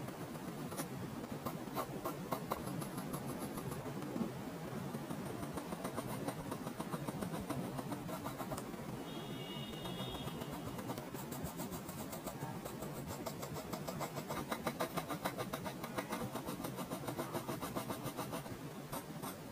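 Graphite pencil scratching on drawing paper in quick, repeated short strokes as facial features are sketched in.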